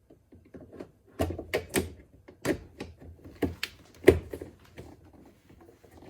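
Plastic door trim piece being handled and pressed into place on a car door: a run of sharp clicks and knocks, the loudest just after four seconds in.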